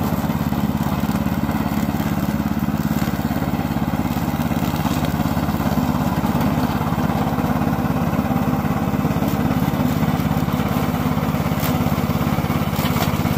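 Engine of a remote-controlled tracked lawn mower running steadily under load as it cuts through tall dry grass and weeds.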